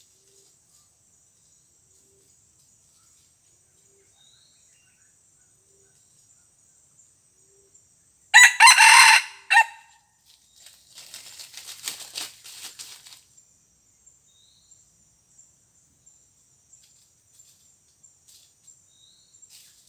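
A rooster crows once, a single call of about a second and a half, about eight seconds in. A few seconds of crackling rustle in the dry leaf litter follow. A faint high steady insect drone runs throughout.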